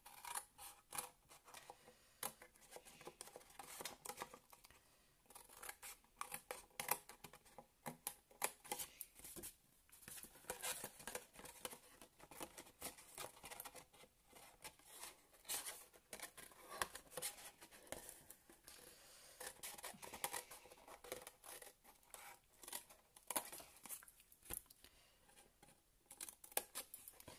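Scissors cutting thin card: many short, faint snips in irregular runs as tabs are cut into the corners of a scored box blank.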